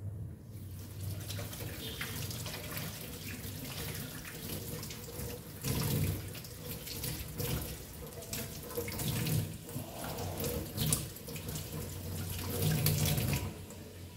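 Water running steadily from a tap, turned on about half a second in and shut off abruptly shortly before the end.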